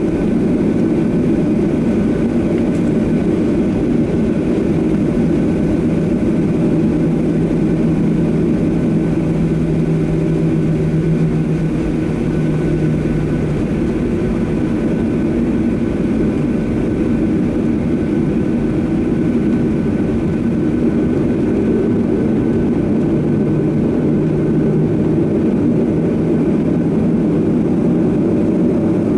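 Steady cabin drone of a Boeing 737-800's CFM56-7B jet engines running at low power on the ground, heard from inside the passenger cabin. A low hum rises out of the drone twice and fades again.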